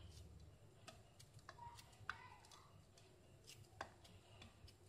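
Near silence: soft white bread torn into small pieces by hand over a plate, with a few faint scattered clicks.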